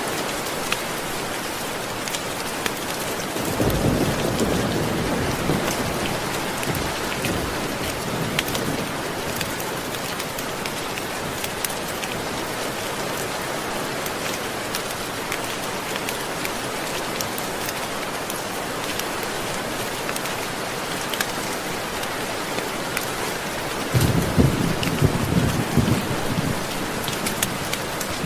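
Steady rain with scattered sharp drop ticks, and two low rolls of thunder: one about three to four seconds in, the other starting about four seconds before the end.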